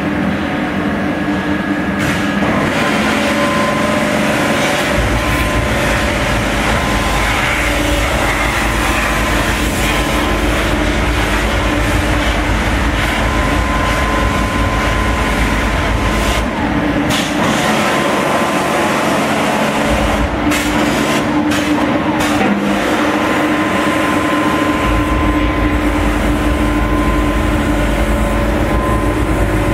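Loud, steady mechanical noise with a constant multi-tone hum, like machinery running in a workshop. A deep low rumble cuts in and out several times.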